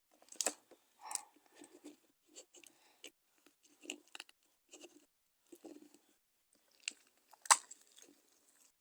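Slime being squeezed and poked by hand, giving irregular short crackles, pops and squelches, with the sharpest pop about three-quarters of the way through.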